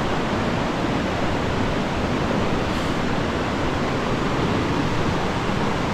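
Steady rushing of a large waterfall, a constant even wash of water noise that sounds massive.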